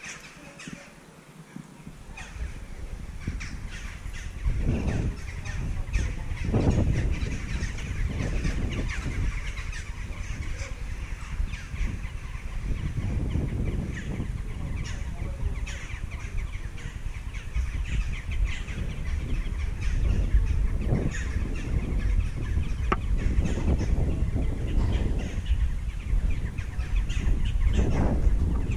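Wind rumbling and buffeting on the microphone in uneven gusts, building up a couple of seconds in, with birds calling overhead.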